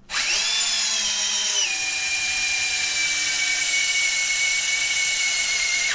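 Drill-driver spinning a roll-crimp head with a high, steady whine. It starts up, and about a second and a half in its pitch drops as the head is pressed down onto a 12-gauge shell hull to roll the crimp under load. It runs on slightly slower, then stops.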